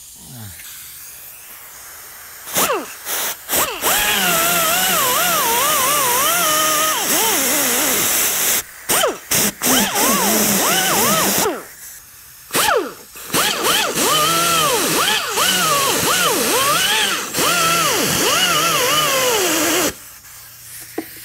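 Air-powered cut-off wheel slicing through the fiberglass body of a 1964 Corvette: a loud hiss with a whine that wavers up and down in pitch as the wheel bites and eases in the cut. It starts with a few short blips, runs for several seconds, stops and restarts in short bursts, then runs again before stopping about a second before the end.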